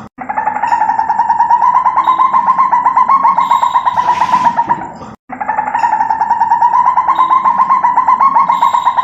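An animal call: a loud, rapid pulsing trill held for about five seconds, heard twice with a short break between.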